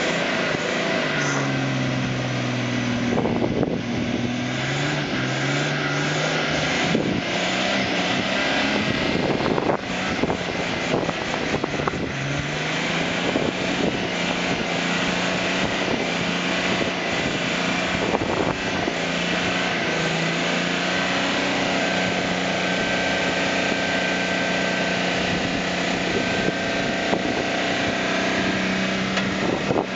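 Open safari vehicle's engine revving hard as it tries to drive out of deep mud, its wheels failing to get grip. The revs rise and fall over the first dozen seconds, with scattered crackles, then hold steady and high.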